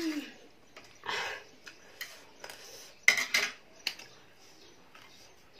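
Metal fork and spoon clinking and scraping against a plastic food tray of ramen, with a short scrape about a second in and the loudest sharp clinks about three seconds in, as the utensils are put down in the tray.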